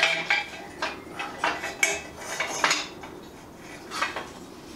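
Motorcycle exhaust header pipes and their metal flange clamps clinking against the cylinder-head studs as they are worked into place: a string of irregular sharp metal clinks, most in the first three seconds, with one more about four seconds in.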